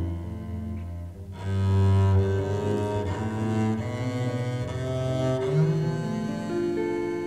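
Double bass played with the bow (arco), carrying a slow jazz ballad melody in long held notes over a small jazz group's accompaniment. The music dips briefly just after a second in, then a strong new note comes in.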